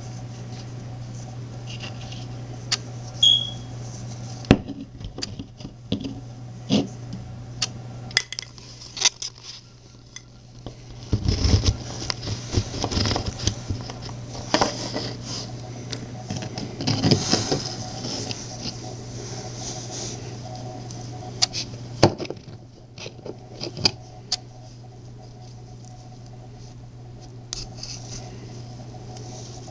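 Handling noise from a glazed ceramic turtle whistle pendant on a cord: scattered clicks and light clinks of the clay piece against fingers and a hard surface, with a steady low hum underneath.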